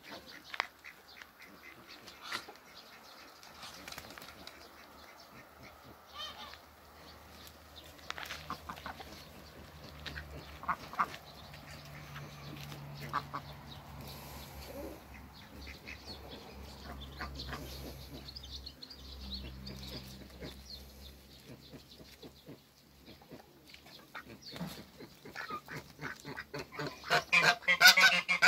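Backyard poultry calling now and then: short calls from chickens, a duck and a Toulouse goose. Near the end the goose breaks into a loud, rapid series of honks.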